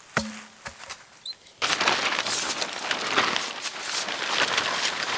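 A sharp click as a knife is sheathed, then, about a second and a half in, a continuous loud crinkling rustle of a plastic poly tarp being pushed up on a wooden pole from beneath.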